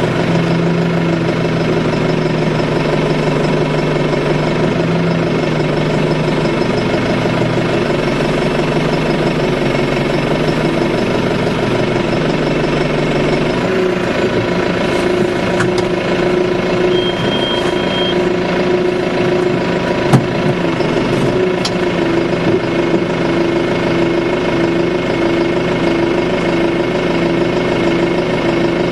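Tractor engine running steadily, heard from inside the cab while the loader works the post driver. A single sharp click comes about twenty seconds in, and a regular pulsing sets into the engine note over the last few seconds.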